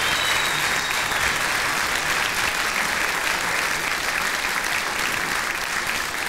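Large audience applauding with steady, dense clapping.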